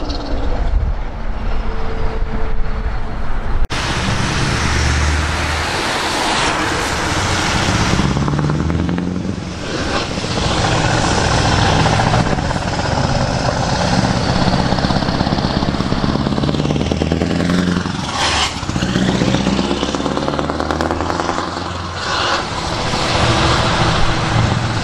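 Scania V8 truck engines with open exhaust pipes pulling away and accelerating, the engine note climbing and dropping back at several gear changes. There is an abrupt cut between two trucks about four seconds in.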